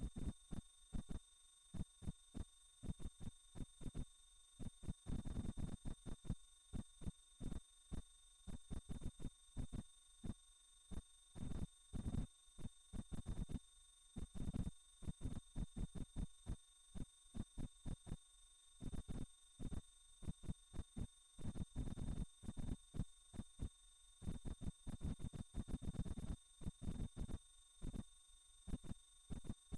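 Synthesized sound-healing frequency tone: a single very high-pitched sine tone held steady, pulsing evenly in loudness several times a second.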